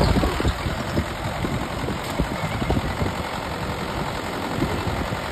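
Mahindra 585 tractor's four-cylinder diesel engine running steadily under load while it drives a Shaktiman rotavator through a flooded paddy field, puddling it, the blades churning wet mud.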